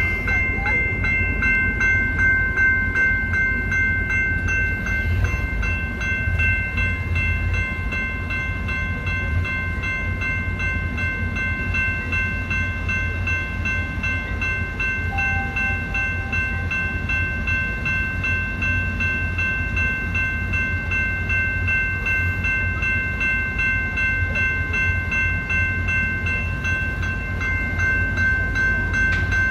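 Railroad grade-crossing warning bell ringing steadily and continuously, over a low rumble of the train and wind.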